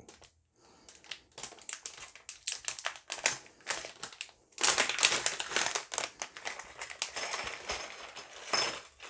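Crinkling and crackling of a metallized anti-static plastic zip bag being handled and shaken out, with small clicks of electronic components dropping onto a desk. It gets louder and denser about halfway through.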